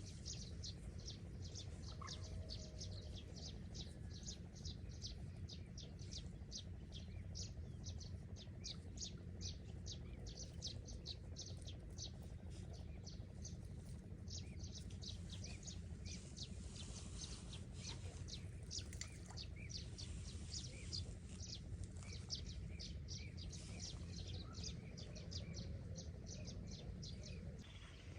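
A bird chirping over and over, short high chirps about two to three a second, above a low steady rumble.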